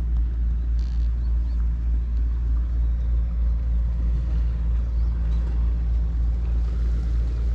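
Steady, deep engine hum that holds one even pitch throughout, like a large engine left idling.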